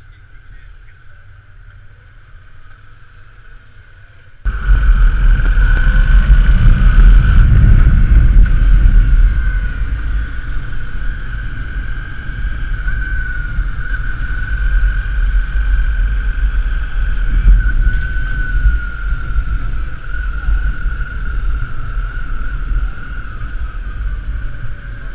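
Touring motorcycle being ridden, its engine noise mixed with heavy wind rush on the bike-mounted camera's microphone. It is quieter for the first few seconds, then turns loud abruptly about four and a half seconds in and stays loud, with a steady whine above the rumble.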